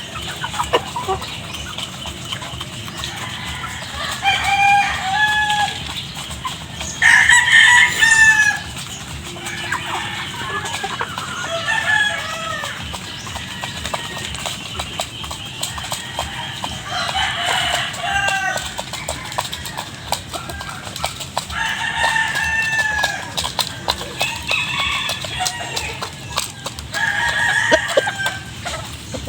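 A flock of chickens clucking and calling at feeding time, with a rooster crowing once about seven seconds in, the loudest sound. Scattered short clicks sound throughout.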